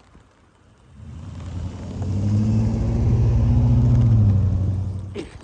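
A road vehicle driving past across the level crossing: a low engine and tyre rumble that swells from about a second in and fades away near the end.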